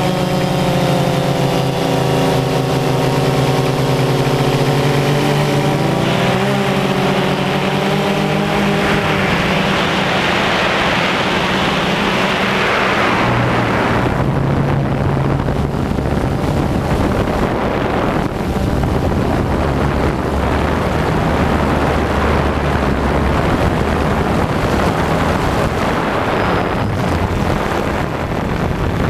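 Multirotor drone's motors and propellers running, at first a steady whine of several pitches that waver slightly, then mostly a rushing, wind-like noise from about a quarter of the way in.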